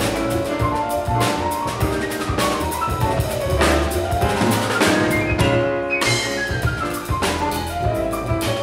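Jazz piano trio playing: grand piano, upright double bass and drum kit, the drums and cymbals keeping time under the piano line.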